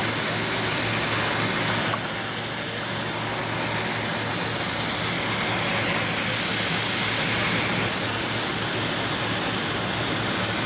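Airbus A319-100 jet engines running at taxi power: a steady jet noise with a high whine, dipping slightly about two seconds in.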